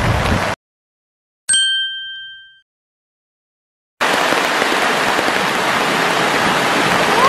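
Rushing stream water and rain cut off abruptly about half a second in; a second later a single bright chime rings once and fades away over about a second, an edited-in ding in complete silence. The rushing water and rain come back suddenly about four seconds in.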